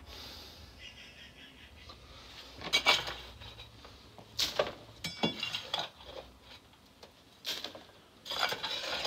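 A small hand trowel scraping and clinking against stony soil and rubble while digging a trench, in about five separate bursts, the loudest about three seconds in.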